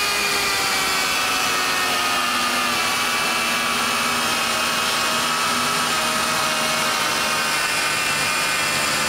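Westfalia 500-watt electric plunge-cut mini circular saw running under load as its blade cuts out the grout between wall tiles. It makes a steady high whine that sags slightly in pitch over the first few seconds as the blade bites into the grout joint.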